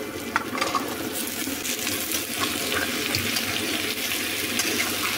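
Cubed potatoes and cauliflower florets sizzling in hot oil and tomato masala in a metal kadhai, with a spatula scraping and clicking against the pan as they are stirred. The sizzle swells about a second in as the vegetables are turned through the oil.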